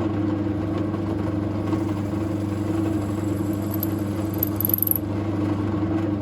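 Drill press running steadily with a constant motor hum while a 5.5 mm bit drills out the bore of a cast resin pen blank. A few brief high-pitched squeaks come about four to five seconds in.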